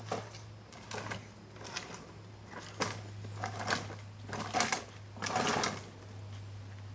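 Electric motor and gearbox of a child's battery-powered ride-on ATV whirring in short stop-start bursts, about one a second, over a steady low hum.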